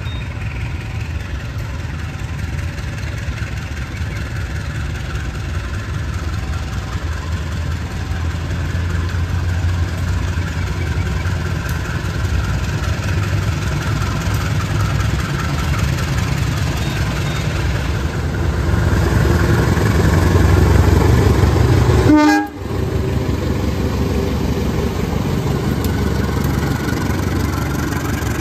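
KAI diesel-electric locomotive hauling a passenger train as it pulls away and passes close, its engine running with a low drone that grows steadily louder. About three quarters of the way through the sound cuts off abruptly and resumes with the locomotive and carriages rolling past.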